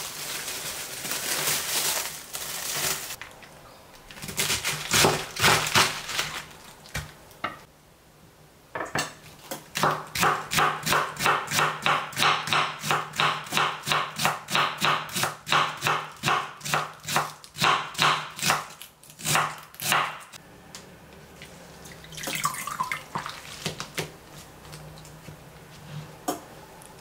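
Kitchen knife shredding cabbage on a bamboo cutting board: a long even run of quick chopping strokes, about three to four a second, through the middle, with shorter bouts of rustling and handling noise before and after.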